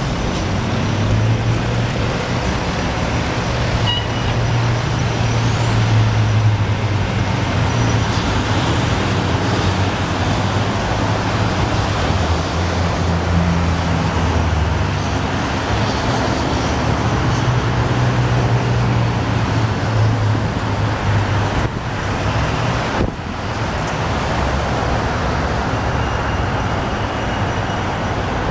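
Steady street traffic noise, with the low drone of motor vehicle engines running nearby.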